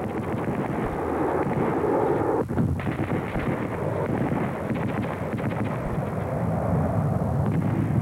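Steady, noisy rumble like a vehicle or aircraft, with irregular crackles throughout and a brief drop in the upper sound about two and a half seconds in.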